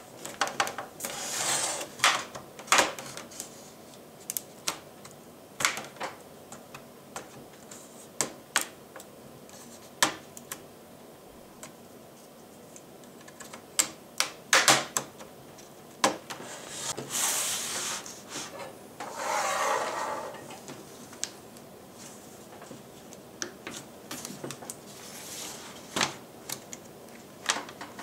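Plastic snap clips of an HP 17.3-inch laptop's case clicking loose one after another as a plastic pry tool is worked along the seam between the keyboard deck and the bottom cover, with short scraping of the pick between irregular sharp clicks. The clicks are the case coming apart.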